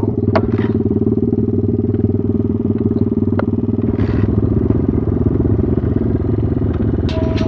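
BSE Z6 enduro motorcycle engine idling steadily, an even rapid putter with no revving. Another sound with sharp clicks and steady tones cuts in just before the end.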